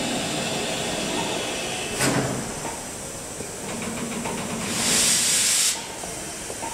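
Steam locomotive letting off steam: a loud hiss lasting about a second, about five seconds in, over a steady background of hiss and rumble. A sharp knock sounds about two seconds in.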